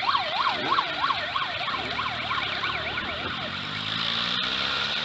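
A siren-style horn on a passing vehicle warbles rapidly, about three rising-and-falling sweeps a second, and fades out after about three and a half seconds. Near the end a vehicle engine is heard rising slowly in pitch.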